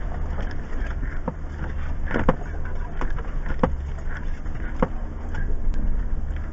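Jeep Wrangler Rubicon's V6 engine running at a slow rock crawl, a steady low rumble heard from inside the cabin. Several sharp knocks and clicks come through as the Jeep works over the rocky trail.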